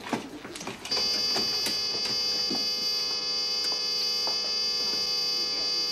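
A steady electric buzz starts about a second in and keeps going, with a few faint clicks over it.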